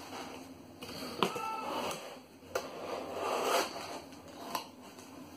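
Paper sheets rustling and a cardboard box being handled and folded shut, with a few sharp taps.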